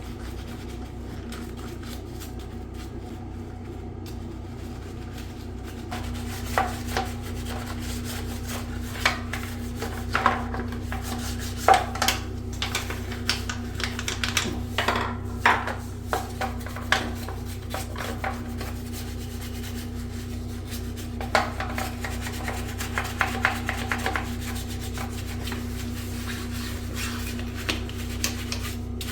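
Hands scrubbing and rubbing bidet parts, in irregular scrapes and clicks that come in two clusters, over a steady low hum that picks up a steady tone about six seconds in.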